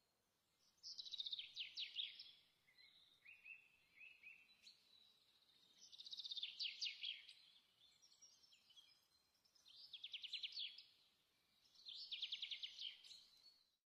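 A small bird singing: four short trills of rapid high notes, each about a second long and a few seconds apart, with a few softer chirps between the first two.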